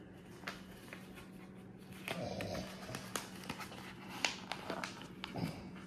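Paper envelope rustling and crinkling as it is handled and worked open, with small sharp taps and clicks from about two seconds in. A couple of short vocal sounds come about two seconds in and near the end.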